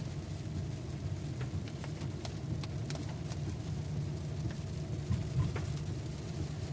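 Car driving, heard from inside the cabin: a steady low rumble of engine and tyres on the road, with a few scattered light ticks.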